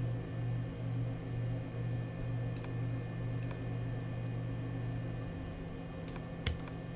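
Steady low electrical hum, pulsing slightly and then evening out, with a few faint mouse clicks.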